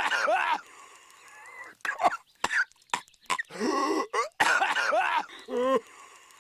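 Patrick Star, the cartoon starfish, coughing in repeated hacking fits. A fit comes at the start and another, longer one in the middle, with single sharp coughs about two seconds in and a short strained wheeze near the end.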